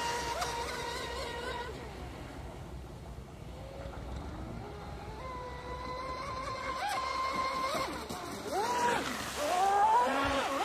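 Electric RC speedboat's brushless motor whining at speed with its hull hissing over the water; the whine fades as the boat runs off, comes back about halfway through, then slides in pitch and grows loud as the boat turns close by near the end.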